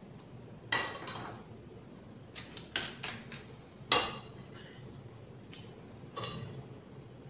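Kitchen clatter: a handful of short knocks and clinks of dishes and utensils being handled, the loudest about four seconds in, over a low steady hum.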